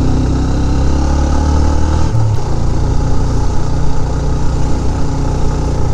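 Motorcycle engine running under load while climbing a steep hill road, with a change in its note about two seconds in.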